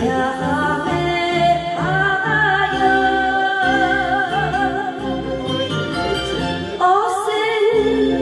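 A woman singing a Japanese enka song into a karaoke microphone over the backing track, holding one long wavering note from about two seconds in.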